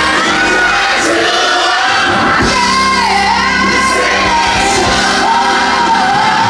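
Music: a song with a singing voice holding long, wavering notes over a steady accompaniment.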